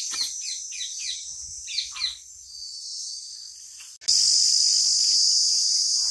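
Steady high-pitched insect drone, with a run of short bird chirps in the first two seconds. About four seconds in, the drone suddenly becomes louder.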